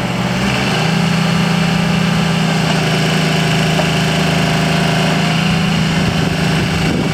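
Diesel engine of a Bobcat 320 mini excavator running steadily with an even hum.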